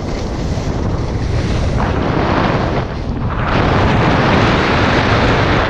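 Wind rushing over a helmet-mounted action camera's microphone, mixed with skis sliding fast over packed snow on a park run-in. It grows louder as speed builds and is loudest in the last couple of seconds before take-off.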